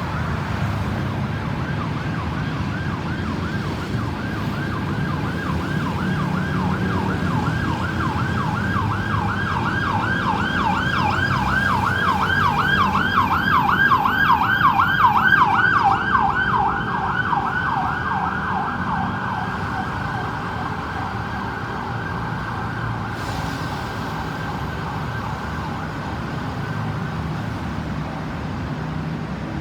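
Ambulance siren wailing in fast up-and-down sweeps, several a second, over road traffic. It grows louder as the vehicle approaches, peaks past the halfway point, then drops a little in pitch and fades as it passes by and moves away.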